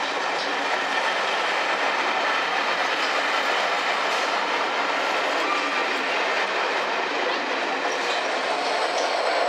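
A train of passenger coaches rolling steadily past close by, a continuous rumble of wheels on rail with occasional faint clicks as the wheels cross the rail joints.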